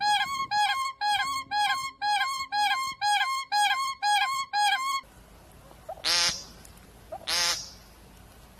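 A bird calling in a fast, even series of short pitched calls, about three a second. Then, after an abrupt change, two longer, harsher calls come about a second apart.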